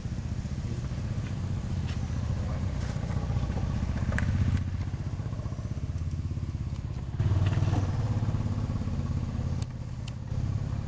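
Steady low rumble of a running motor vehicle engine, getting louder about seven seconds in, with a few faint clicks.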